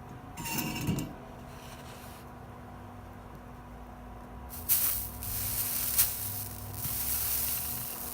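Flux sizzling under a hot soldering iron on a copper-foiled stained glass seam, a hiss of about three and a half seconds starting about halfway in, as the solder melts down into the joint between the glass pieces. A shorter, weaker sizzle comes about half a second in.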